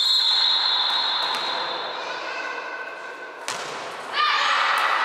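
A referee's whistle blows one long, high tone that fades away. About three and a half seconds in, a volleyball is struck once with a sharp smack, and girls' voices break into shouting just after.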